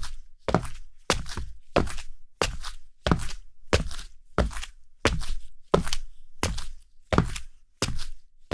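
Sandals walking at a steady pace on a hard floor, each step a distinct slap, about one every two-thirds of a second.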